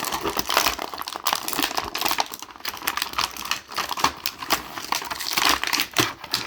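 Plastic packaging being handled: a clear blister tray crinkling and clicking as pieces are worked loose from it, in quick irregular clicks and crackles throughout.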